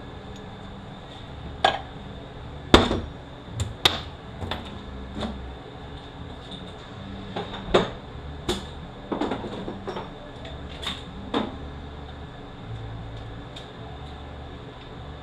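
Irregular metal clanks and knocks from hand tools and transmission parts being handled during disassembly, about a dozen separate strikes, the loudest about three seconds in.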